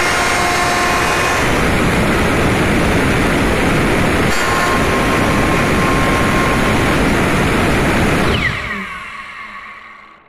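Electric router running at full speed, its bit cutting a circular hole through an aluminium panel. About eight seconds in the motor winds down, its pitch falling as it fades.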